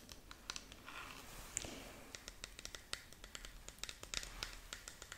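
Long fingernails tapping and scratching on a clear plastic display box: quick, irregular light clicks and soft scrapes, many to the second.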